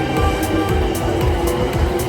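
Japanese railway level-crossing alarm ringing over and over with its repeated electronic bell tones, over the low rumble of a passing train.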